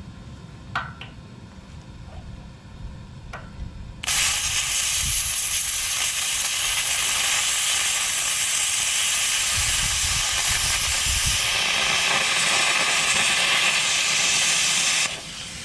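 Plasma cutter starting with a sudden loud hiss about four seconds in, running steadily as it cuts through the nut of a cutting-edge bolt on a bulldozer blade, and cutting off abruptly near the end.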